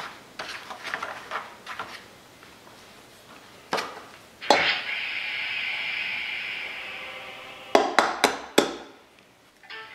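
Eggs knocked against the rim of a stainless steel mixing bowl full of flour, trying to crack the shells. One strike about halfway through sets the metal bowl ringing for a few seconds, and near the end come four quick sharp taps.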